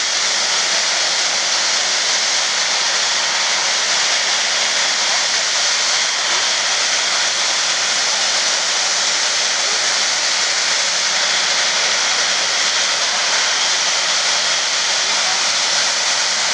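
Jet engines of a Boeing 777-300ER (GE90-115B turbofans) running at taxi power: a steady, even, hissing jet noise with no rise in thrust.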